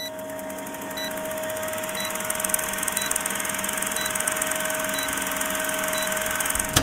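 Film-leader countdown sound effect: a film projector's rapid clatter and hiss over a steady hum, with a short high beep every second as the numbers count down. It cuts off suddenly at the end.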